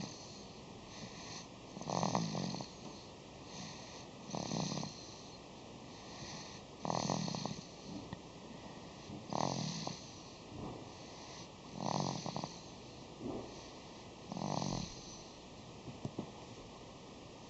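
A sleeper snoring: six snores, about two and a half seconds apart, with a softer breath between each. The last snore comes about three seconds before the end.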